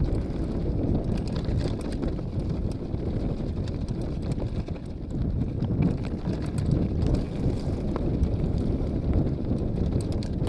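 Downhill mountain bike rolling fast over a loose stony trail: a constant low rumble from the tyres on rock, with many irregular sharp clicks and knocks as the bike clatters over stones, and wind buffeting the camera microphone.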